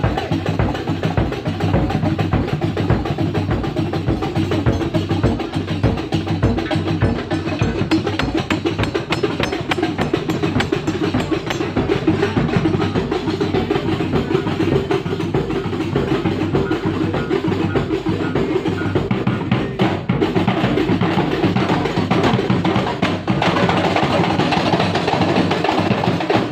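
Kuntulan percussion ensemble playing: a fast, dense, steady rhythm of hand-struck frame drums (rebana/terbang) over a deep bass drum.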